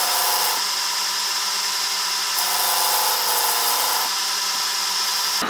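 Metal lathe turning a cast dome in a four-jaw chuck while an insert-tipped tool faces it back: a steady machine whine with cutting noise, shifting in tone every second or two.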